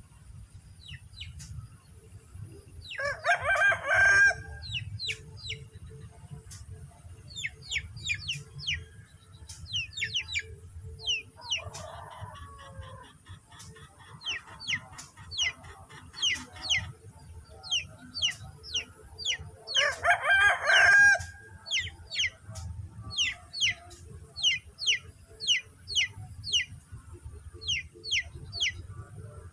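Rooster crowing twice, about three seconds in and again around twenty seconds, each crow lasting just over a second. Small birds chirp throughout in quick, repeated, downward-slurred notes over a faint steady high whine.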